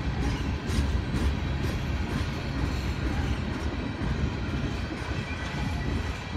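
Freight train tank cars rolling slowly past close by: a steady low rumble of steel wheels on rail, with a few light clicks.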